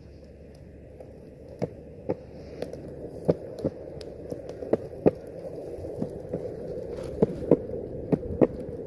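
Longboard wheels rolling on a concrete sidewalk: a steady low rumble that slowly grows louder, broken by about ten sharp clacks as the wheels run over joints and cracks in the slabs.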